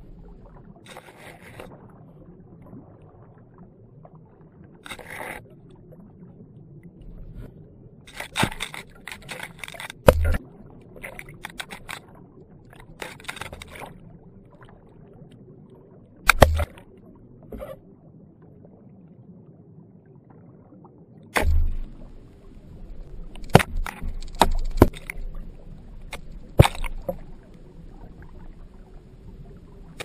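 Muffled underwater noise of river water heard through a GoPro's waterproof housing, broken by sharp clicks and knocks, some single and some in quick clusters, mostly in the second half.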